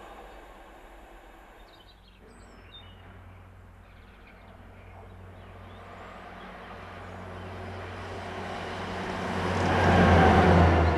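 A self-propelled yellow rail maintenance vehicle approaching and passing close, its steady low diesel engine hum growing louder and peaking near the end. Over the first two seconds the rumble of a previous train fades out, and a few faint bird chirps come soon after.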